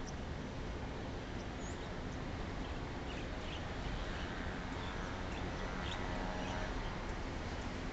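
Steady low background rumble with scattered faint bird chirps, and a faint whine in the middle of the stretch; no distinct pounding knocks.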